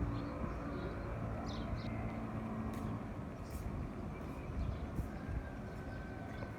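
A steady low rumble with a few faint, short bird chirps in the first two seconds.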